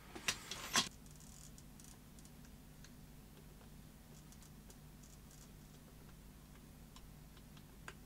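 Small screwdriver and soldering iron working at a micro-USB socket on a circuit board: a short louder scrape in the first second, then faint, irregular ticks of metal on metal over a low steady hum.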